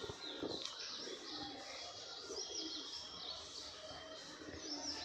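Several birds chirping, many short high calls overlapping one another.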